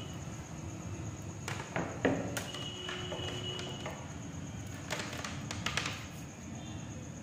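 Handling noises: a few irregular taps and clicks, loudest about two seconds in, as hands work a length of cord against a wooden desk, over a steady low background hum.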